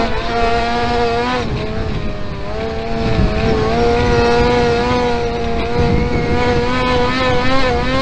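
Kart-cross racing engine at high revs, heard onboard the kart on a dirt track; its pitch sags briefly about one and a half seconds in, then climbs back and holds high.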